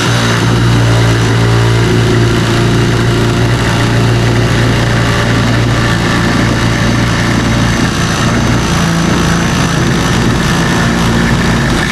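A power tool running steadily under load with a strong low motor hum, cutting an opening in the van's sheet-metal side for a window.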